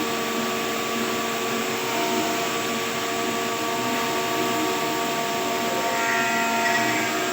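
A woodworking machine running steadily, with a constant whine over a broad rushing noise.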